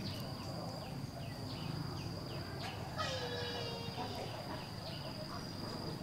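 Outdoor insect chorus: a steady high-pitched insect drone, with short repeated chirps and one longer pitched animal call about halfway through.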